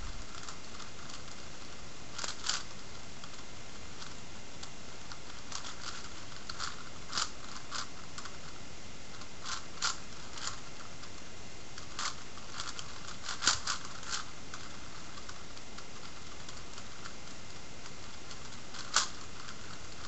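Layers of a 5x5x5 Rubik's cube being turned by hand, making scattered plastic clicks and clacks at irregular moments, some in quick pairs, with the loudest cluster a little past the middle.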